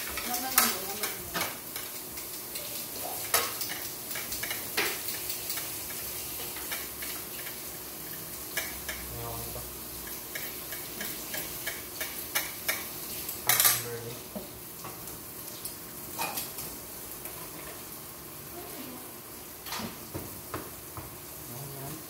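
Food sizzling on a tabletop grill pan, with frequent clinks and clatter of metal tongs and utensils against the pan and plates. The loudest clatter comes a little past the middle.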